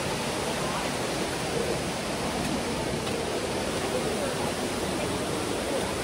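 Waterfall rushing, a steady, even roar of falling water.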